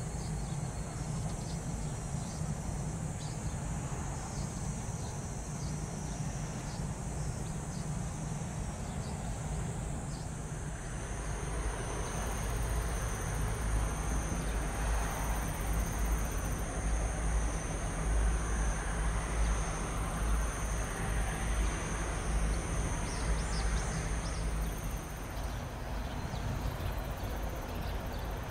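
Outdoor ambience: insects trilling steadily at a high pitch over a low, steady rumble. Both grow louder about eleven seconds in.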